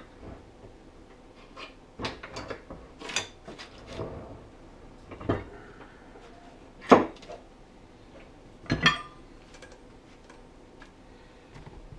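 Metal tools and clutch parts clanking and clinking on a workbench: scattered sharp knocks, the loudest about seven seconds in, and one near nine seconds that rings briefly like struck steel.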